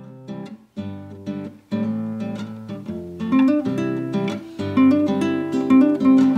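Acoustic guitar music: a few picked notes at first, settling into steady strumming about two seconds in and growing louder.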